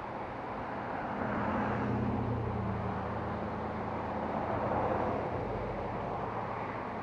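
Road traffic: a steady rumble that swells twice, once about a second in and again about four seconds in, like vehicles going by.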